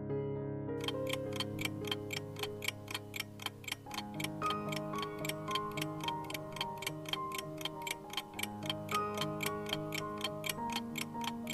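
Countdown ticking-clock sound effect, with rapid, even ticks about four a second starting about a second in, over soft background music.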